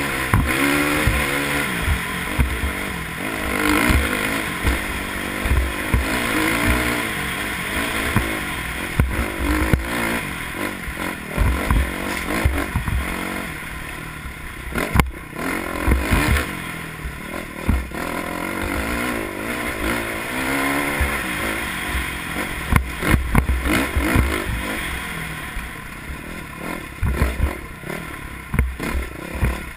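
Off-road motorcycle engine revving up and down again and again as the bike climbs a rocky desert trail, with rocks clattering and sharp knocks from the wheels and suspension hitting the rough ground.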